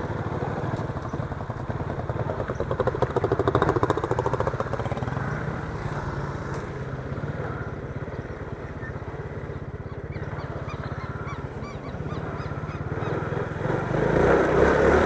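Motorcycle engine running, revving up and back down about three seconds in, settling lower through the middle and picking up again near the end.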